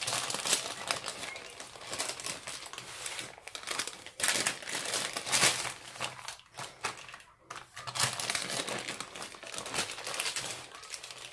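Baking paper crinkling and rustling as a sponge cake is rolled up in it, with irregular crackles and louder rustles about four and five and a half seconds in.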